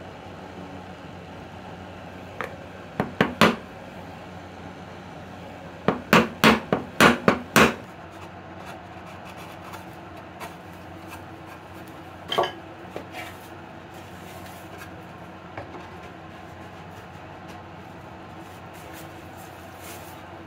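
Hand chisel work on wood: sharp knocks and scrapes as the chisel meets the wood, a few about three seconds in, a quick run of about six between six and eight seconds, and one more near twelve seconds, over a steady low hum.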